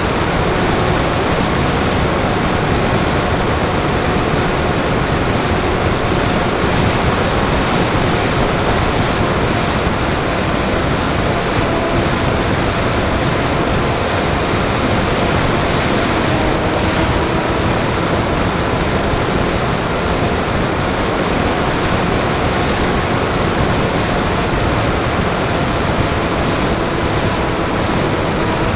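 Steady wind rush over an RC airplane in flight, mixed with the whine of its electric motor and propeller. The motor's pitch drifts a little as it flies.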